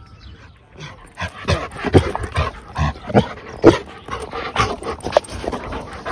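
Black Labrador retriever panting close to the microphone as it runs up, a run of short, irregular breaths starting about a second in.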